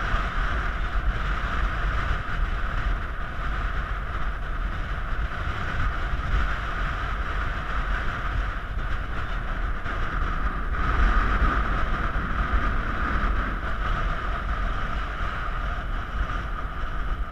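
Steady wind rushing over the microphone, with a heavy low rumble and a steady hiss.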